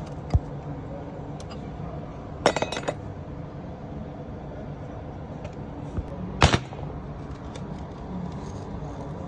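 Metal clinks of tools or parts being handled: one near the start, a quick run of several about two and a half seconds in, and a loud one about six and a half seconds in, over a steady low hum.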